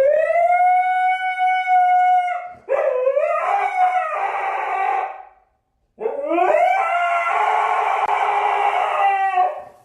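A dog howling: three long howls with short breaks between them, each sliding up in pitch at the start and then held steady, the later two rougher.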